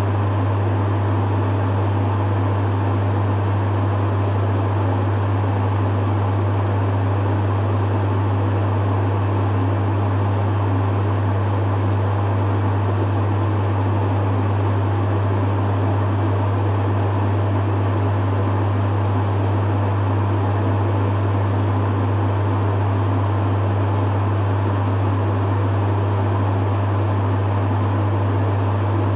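Dehumidifier running steadily: a strong low hum under the even whoosh of its fan.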